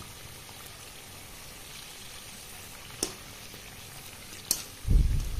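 Jackfruit fritters deep-frying in hot oil: a steady bubbling sizzle. There are two sharp clicks, about three and four and a half seconds in, and a loud low rumbling starts near the end.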